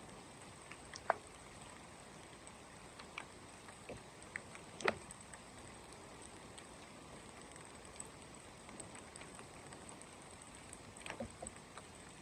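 Faint steady rain with scattered drops and taps; a sharper tap about a second in, another about five seconds in, and a short flurry near the end.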